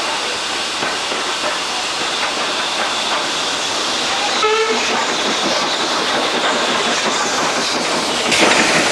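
Two steam trains passing: steady running noise and rail clatter from the carriage being ridden in, as a train hauled by a Hunslet Austerity 0-6-0 saddle tank goes by on the next track. A short pitched toot comes about halfway through, and a louder rush of hiss near the end.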